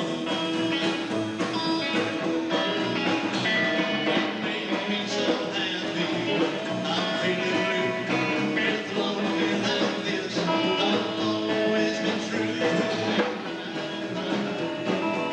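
Rock song with electric guitar and a steady beat, with some singing.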